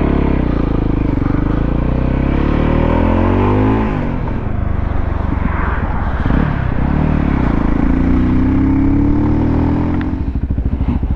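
Voge 300 Rally's single-cylinder engine pulling under throttle. Its revs rise for the first few seconds, drop sharply about four seconds in, and later climb again.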